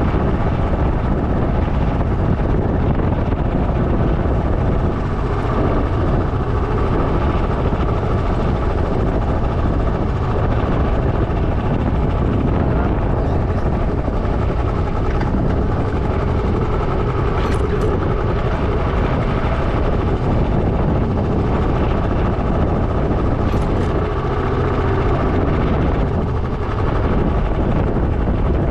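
Motorcycle riding along a road: a steady rush of wind buffeting the microphone, with the motorcycle's engine running underneath at an even pace.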